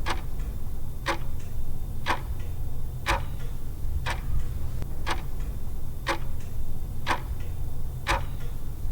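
Clock-tick countdown timer sound effect, about one sharp tick a second with a softer tick between some of them, over a low steady hum, counting down the time to answer a quiz question.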